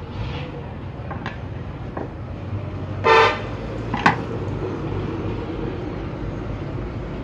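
A vehicle horn gives one short toot about three seconds in, over a steady low traffic rumble. A sharp short sound follows about a second later, with a few faint small clicks earlier on.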